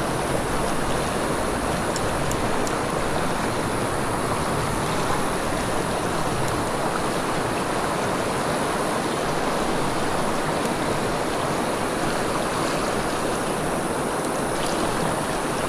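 River current rushing steadily.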